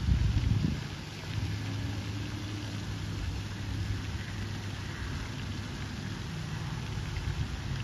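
Steady splashing of falling water from a pond fountain and rock waterfall, a rain-like hiss, over a low steady hum. A brief low rumble sits in the first second.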